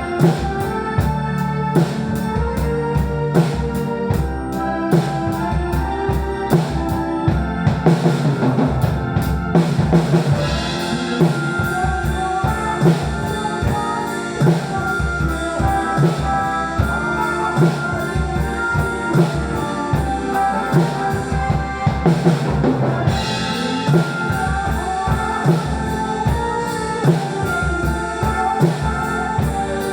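Drum kit played along to a recorded song, the kick, snare and rimshots keeping a steady beat over the song's sustained melody.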